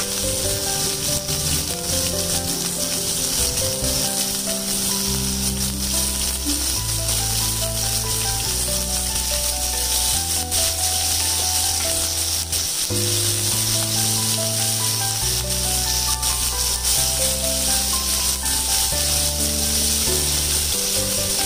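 Background music with a melody and a bass line that changes note every second or two, over a steady hiss of prawns sizzling in hot oil in a pan.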